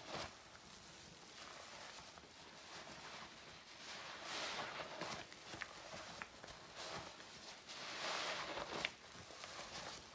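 A sponge soaked in floor cleaner being squeezed, squelching and crackling wet, in slow swells that peak about four and eight seconds in, with a few small crisp pops.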